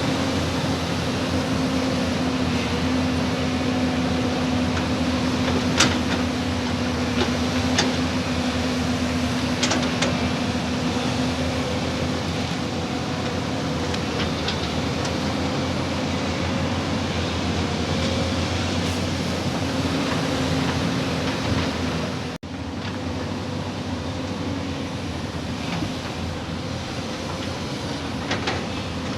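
Diesel engine of heavy earthmoving machinery, such as an excavator, running steadily with a low hum, with a few sharp clicks in the first half. The sound changes abruptly and drops slightly in level about 22 seconds in.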